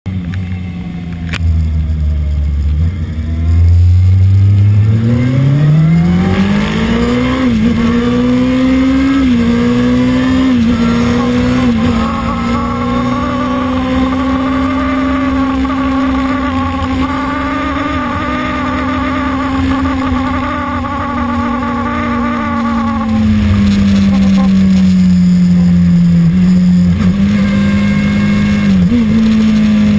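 Kawasaki ZX-6RR's inline-four engine pulling away from low revs, the pitch climbing steeply with a short dip at each upshift, then held high and steady. After about twenty seconds it eases off to a lower note, with a couple of brief blips near the end.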